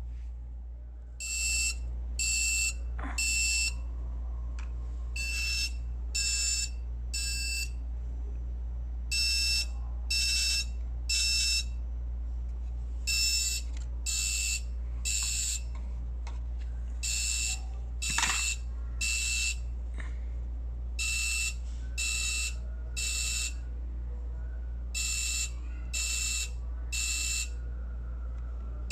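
Wi-Fi smoke alarm sounding in test mode: a high-pitched beep in groups of three, each group repeating about every four seconds, the standard temporal-three evacuation pattern. The beeping starts about a second in, over a steady low hum.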